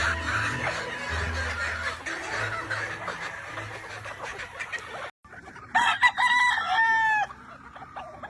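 Gamefowl rooster crowing once, a long crow that drops in pitch at the end, about six seconds in. Before it, chicken noise mixes with background music until a brief cut.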